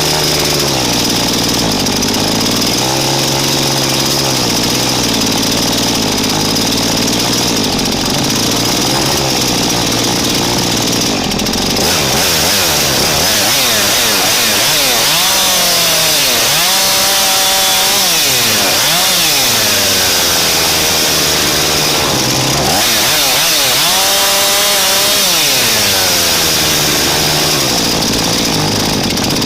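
Husqvarna chainsaw engine running at close range. It holds a fairly steady speed at first, then from about halfway revs up and down repeatedly.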